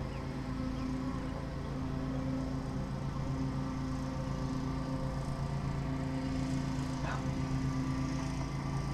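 Steady hum of a honeybee colony crawling over the exposed top bars of an open hive, with a brief higher chirp about seven seconds in.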